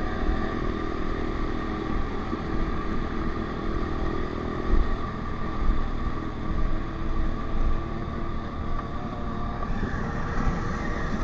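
Honda CRF125F's air-cooled single-cylinder four-stroke engine running steadily under way, with wind rumble on the microphone.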